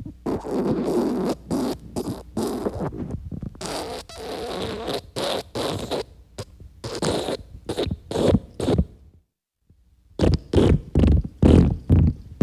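A string of wet farts: separate sputtering blasts of uneven length with short gaps between them, a pause about nine seconds in, then a quick run of short blasts near the end.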